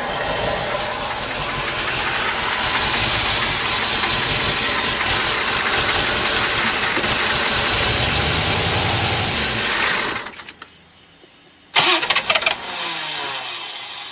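1989 Chevrolet Corvette's 5.7-litre V8 running with a miss from a bad fuel injector, then cut off about ten seconds in. A burst of sharp clattering knocks follows a little later, then a short falling whine.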